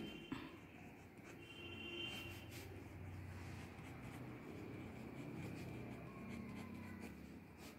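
Ballpoint pen writing on paper: faint, irregular pen strokes.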